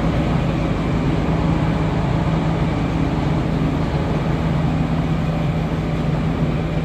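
Heavy farm-machinery diesel engine running steadily at a constant high speed, with a strong even drone and no change in pitch.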